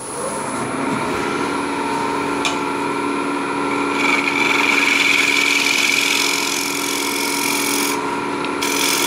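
A wooden bowl spinning on a Neureiter Twister XL lathe being cut on its base with a handheld turning tool: a steady cutting hiss over the lathe's running hum, with a short break in the cutting near the end.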